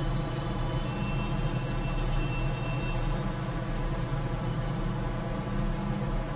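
Steady hum and hiss of background noise with no speech, joined by a faint thin high tone for a couple of seconds about a second in.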